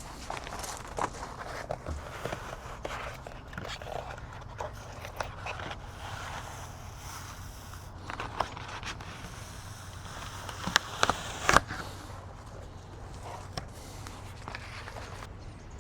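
Old foam deck pad being peeled off a paddle board after heating: scattered irregular crackles and short clicks over a faint steady hum, with a few sharper clicks about eleven seconds in.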